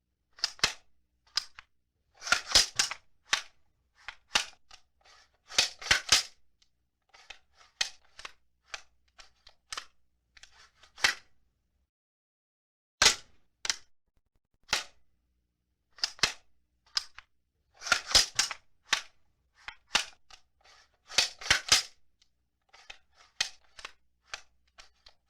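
Gunfire sound effects of the machine-gun kind: short bursts of rapid sharp shots alternating with single shots, spaced irregularly, with brief silences between.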